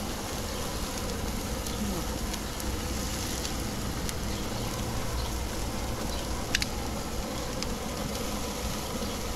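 Meat and fat sizzling on a grill, an even hiss over a steady low hum, with a few sharp crackles about four and six and a half seconds in.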